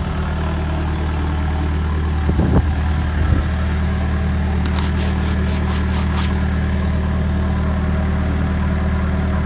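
Diesel engine of a Tundra RT750 rig heater, a small Caterpillar C4, running at a steady idle while warming up, with a couple of knocks and, about halfway, a quick run of sharp clicks.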